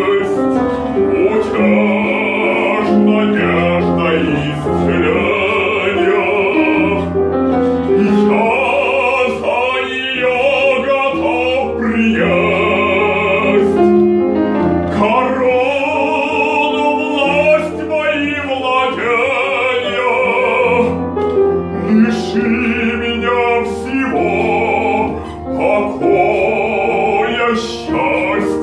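Operatic singing with wide vibrato, in long held phrases with short breaths between, over instrumental accompaniment.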